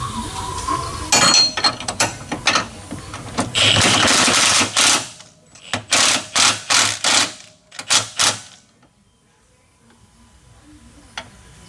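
An impact wrench runs in short bursts on a suspension bolt: one longer run of about a second and a half, then a string of about six quick blips, with metal tool clicks in between.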